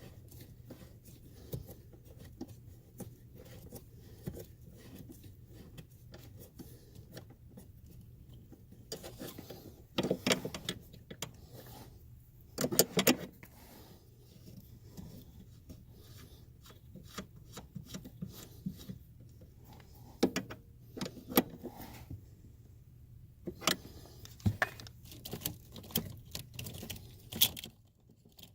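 Irregular metallic clinks, rattles and scrapes of a wrench and parts being worked by hand, with louder bursts of rattling about ten and thirteen seconds in and again in the last third.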